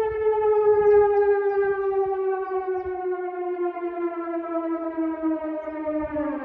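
Outdoor civil-defence warning siren wailing: one long held tone that sags slightly in pitch, then begins to fall away near the end.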